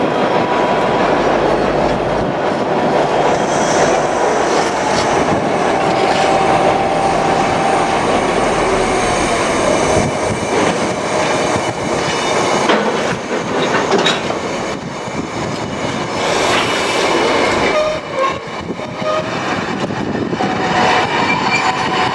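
Freight train of bogie aggregate hopper wagons passing close by, wheels rumbling and clattering over the rail joints with a steady loud roll. Thin squealing tones from the wheels ride over the rumble.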